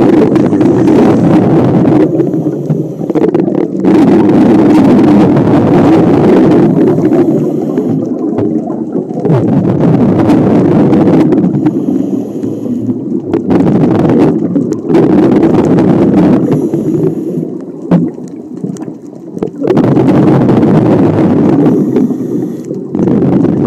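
Scuba diver breathing through a regulator, heard from close by: about five long, loud bubbly exhalations, each followed by a quieter gap with a thin high hiss as the diver inhales through the regulator.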